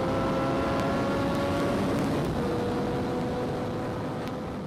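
Yamaha MT-09's three-cylinder engine pulling under acceleration at road speed, its note rising slowly, breaking off briefly about two seconds in, then holding steady and easing slightly toward the end.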